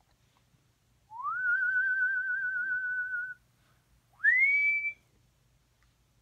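A person whistling two notes. The first slides up and is held with a quick warble for about two seconds. The second is shorter and higher, sliding up and then holding steady.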